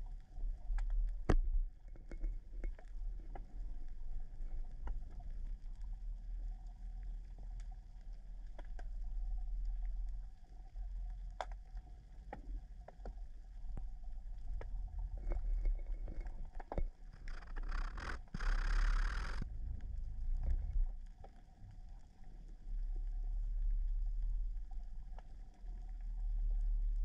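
Underwater ambience picked up by a submerged camera: a steady low rumble of water moving around the housing, with scattered sharp clicks and a short hiss about two-thirds of the way through.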